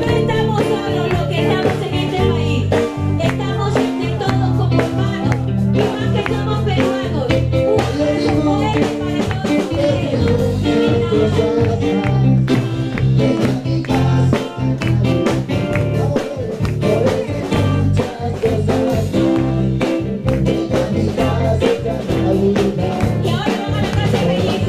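Loud upbeat music with a singing voice and a steady beat.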